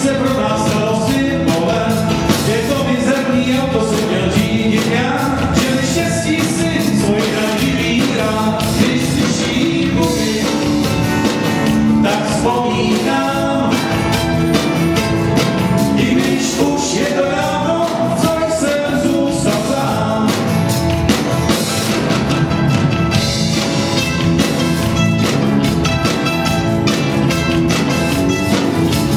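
A small folk-rock band playing live through a PA: strummed acoustic guitar, mandolin, electric bass and drums, with a man singing.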